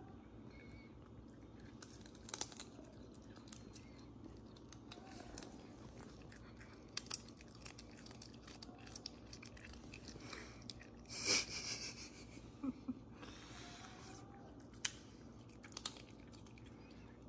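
Serval chewing and biting into a piece of raw quail held in a hand, with irregular sharp crunches scattered through, the loudest a little after the middle.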